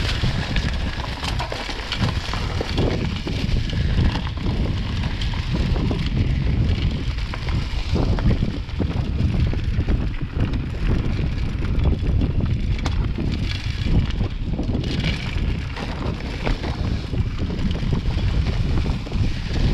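Bike descending a rough forest trail: a continuous rumble of tyres rolling over the dirt, with many short knocks and rattles from the bike jolting over bumps, and wind buffeting the microphone.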